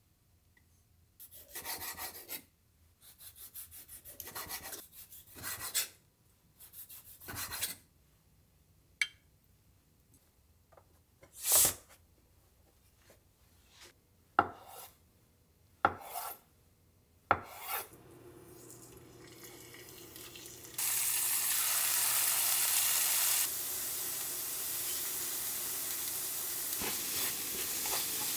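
Rubbing and scraping, then a few sharp knocks of a kitchen knife on a wooden cutting board as tofu is cut. About three-quarters of the way in, crumbled tofu starts sizzling steadily in a hot cast-iron pan while a wooden spatula stirs it.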